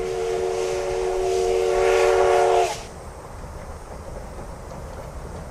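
Steam whistle of a C10 tank locomotive blowing one long, steady chord that grows louder and breathier with steam hiss, then cuts off sharply about two and a half seconds in. A low rumble from the train follows.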